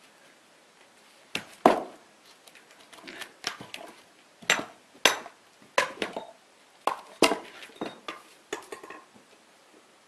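Split firewood pieces knocking and clattering against one another as they are handled and set down on a pile: about a dozen sharp, irregular wooden knocks, the loudest one under two seconds in.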